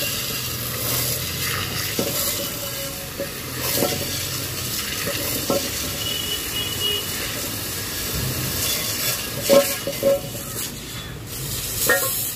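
High-pressure water jet from a hose hissing and splashing onto engine parts, a metal oil sump pan and camshafts, washing them clean during an engine overhaul. A few sharp knocks come in the last few seconds.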